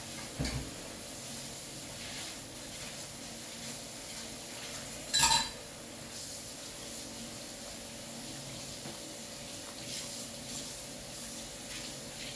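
Steady background hiss with a faint hum, a short knock just after the start and one loud, sharp ringing clink about five seconds in.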